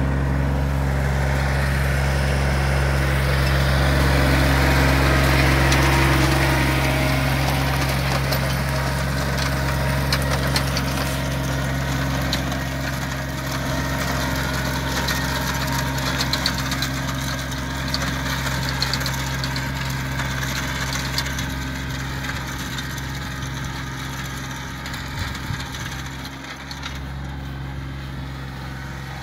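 John Deere 2320 compact tractor's three-cylinder diesel engine running steadily as it pulls a plug aerator, with scattered clicks and rattles from the aerator through the middle. The engine fades near the end as the tractor moves away.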